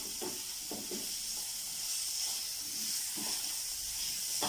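Diced onion and capsicum sizzling in hot oil in a wok, with a steady hiss, while a silicone spatula stirs them with a few soft scraping strokes.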